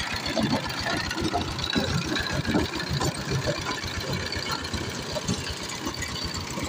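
Sifang single-cylinder diesel engine of a two-wheel power tiller running steadily with a fast, even low beat, under load as it drives the rotary tiller through dry soil.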